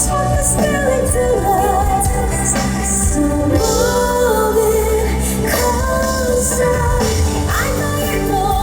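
Female singer singing a pop song live over instrumental accompaniment, her voice gliding between held notes.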